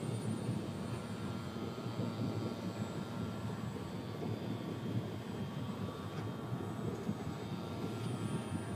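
Electric motor and propeller of a radio-controlled E-flite Carbon Cub floatplane droning steadily as it flies over, under a low steady rumble.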